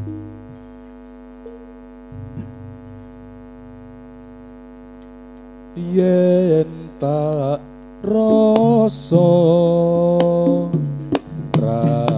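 Javanese song for a jathilan dance, played over a loudspeaker: a steady hum for about the first six seconds, then a singing voice comes in, with a few sharp drum hits near the end.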